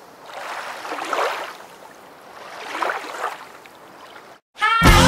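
Lake water swishing in two swells that rise and fade, like small waves or a paddle stroke moving water. Just before the end a short silence, then loud music with a steady beat starts abruptly.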